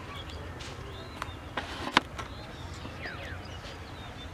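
Small birds chirping faintly over a low steady rumble, with a few sharp clicks between one and two seconds in, the last the loudest.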